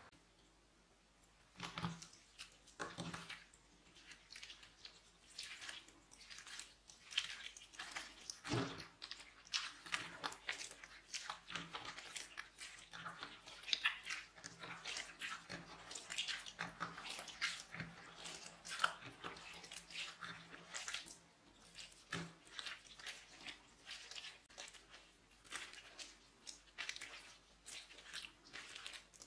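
Clear glitter slime being kneaded and squeezed by hand, making dense, irregular wet crackles and squelches. It starts about a second and a half in.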